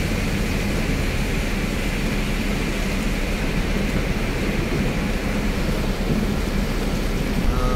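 Steady rumble and road noise of a moving bus, heard inside the cabin while it drives on a rain-soaked road.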